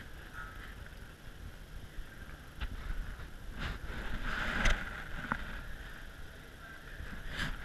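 Quiet scuffs and scattered light knocks of people moving and crawling over a debris-strewn tiled floor, over a faint steady hiss.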